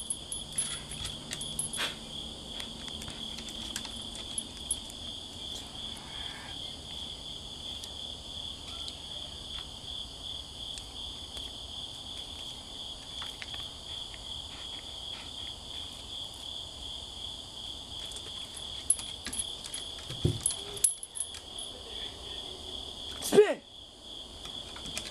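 Crickets chirping in a steady, continuous high trill. Faint scattered clicks and jingles sound over it, and there is one brief loud noise near the end.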